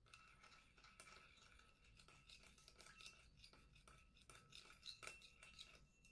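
Metal teaspoon stirring a little liquid in a small glass bowl: quiet, irregular scrapes and light clinks against the glass, which rings faintly.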